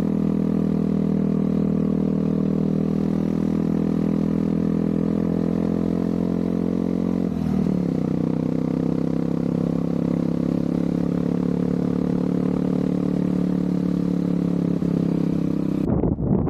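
An engine running steadily, shifting in pitch about seven and a half seconds in.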